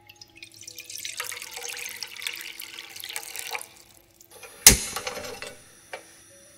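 Water pouring from a glass jug into an empty nonstick kadai, splashing for about three seconds. About a second later comes a sharp click and a short hiss as the gas burner is lit, then a smaller click.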